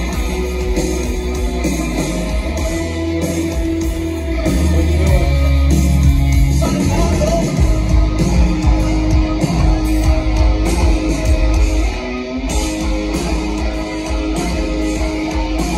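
Rock band playing live through a large festival sound system, with electric guitars over bass and drums. The band swells louder about four seconds in and eases back about twelve seconds in.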